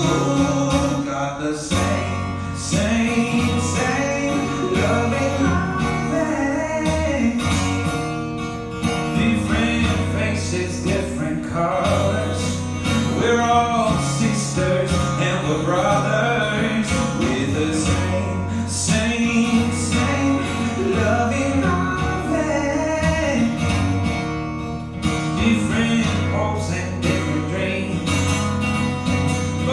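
Several acoustic guitars playing a country-style song live, a melody line over strummed chords.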